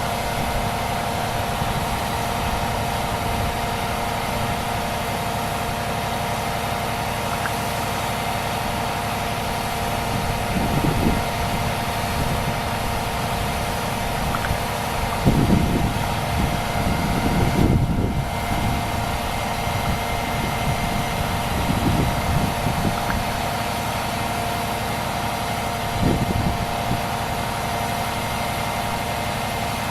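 A vehicle engine idling steadily, with a constant hum and a few short low swells.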